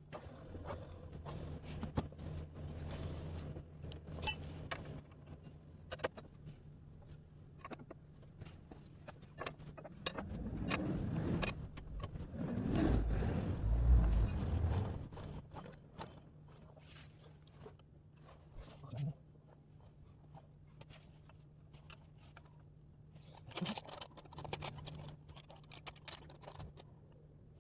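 Scattered clicks, clinks and scrapes of objects being handled, with a louder low rumbling stretch in the middle, over a faint steady low hum.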